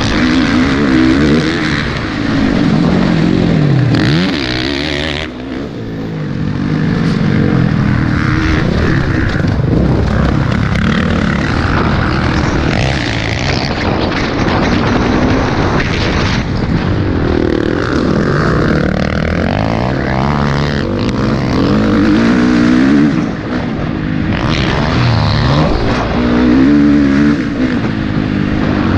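Onboard sound of a small dirt bike engine revving up and down repeatedly as it is ridden hard around a dirt track, with wind noise on the microphone. The engine briefly drops off about five seconds in and again near the last quarter before picking back up.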